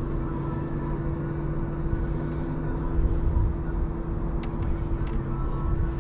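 Boat motor running steadily: a constant hum over a low rumble.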